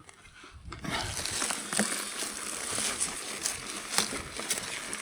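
Dry grass and brush rustling and crackling as a loaded touring bike is pushed uphill on foot, with scuffing steps, starting about a second in.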